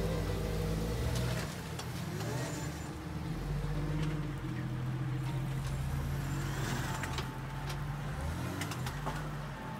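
Jeep engine running at low revs as a lifted Jeep Wrangler crawls over wet creek boulders, the throttle rising and falling. A few short sharp knocks come in the second half.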